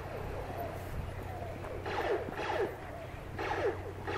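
Laser tag guns firing: short electronic zaps that each fall quickly in pitch, a quick cluster of them about two seconds in and another about three and a half seconds in.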